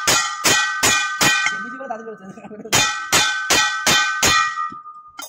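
Hammer blows on ringing metal, a steady run of about three strikes a second, each leaving a bright ring. The blows pause for about a second midway, then resume for five more before the ring fades away.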